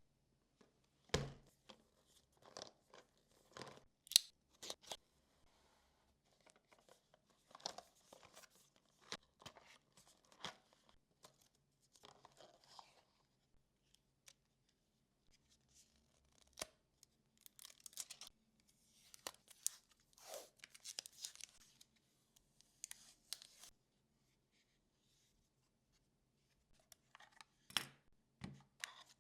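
Unboxing a doorbell camera: the box and its packaging are handled and opened. There are scattered sharp clicks and taps and stretches of rustling and tearing, all faint, with a few seconds of near quiet after the middle.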